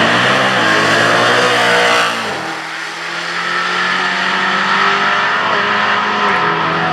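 A V8 drag car at full throttle down the strip, its engine pitch moving through the gears. About two seconds in the engine sound falls away, and a steadier, lower engine drone carries on.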